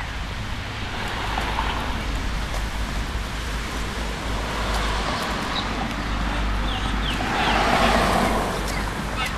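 A car driving past on the street, its engine and tyre noise swelling to a peak about eight seconds in, over a steady low rumble.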